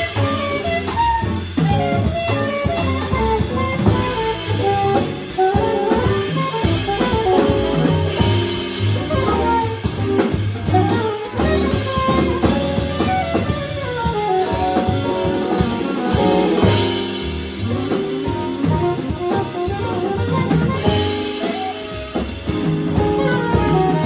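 Live jazz quartet playing: saxophone carrying a melodic line over piano, upright double bass and drum kit.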